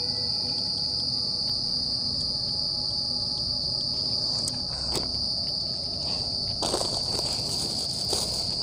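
Steady, shrill chorus of night insects, likely crickets, holding one high pitch without a break. About two-thirds of the way in, a rustling of handled gear begins under it, as a bag is rummaged through.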